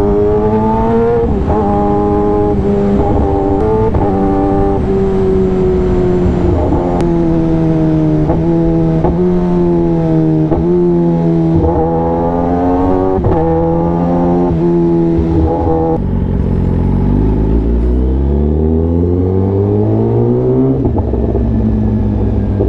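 Kawasaki ZX-10R superbike's inline-four engine under way, with the revs rising and falling with throttle and gear changes. Near the end the engine note climbs steadily for about four seconds, then drops sharply at an upshift.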